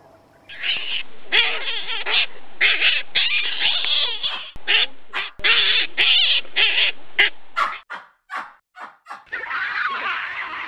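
Animal calls in quick succession: a dense run of loud calls, then a string of short separate calls, and one longer call near the end.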